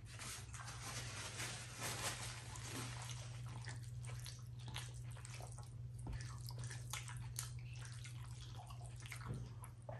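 Bare fingers squishing and kneading rice mixed with mashed potato bharta and dal on a plate: a dense run of soft wet squelches and small clicks. A steady low hum runs underneath.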